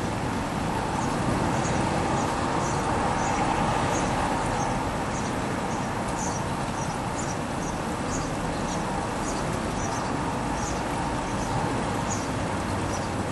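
Steady background rumble of distant road traffic, with small birds chirping in many short, high calls throughout.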